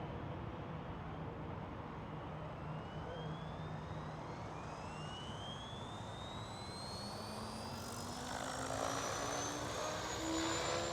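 Goblin Kraken 580 electric RC helicopter spooling up. The whine from its motor, gearbox and rotor climbs steadily in pitch and grows louder over the last few seconds. The gearbox has a newly fitted one-way bearing, and there is wind noise on the microphone.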